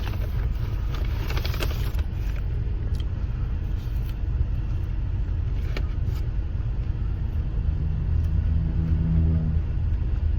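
Steady low rumble of a running car engine, with a deeper pitched hum swelling for about two seconds near the end. A few faint clicks of eating come in the first two seconds.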